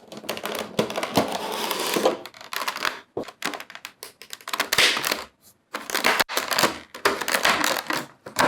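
Close-up handling noise: irregular crinkling, rustling and clicking that starts suddenly and stops and starts with short gaps.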